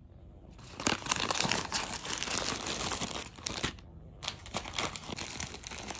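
Packaging crinkling and crackling as it is handled and pulled open. It starts about half a second in, pauses briefly around four seconds in, then goes on.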